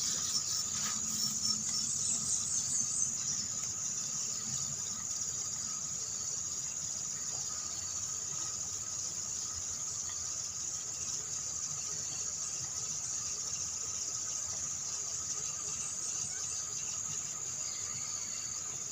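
Insects chirring in a steady, unbroken high drone, with a fainter low rumble underneath during the first few seconds.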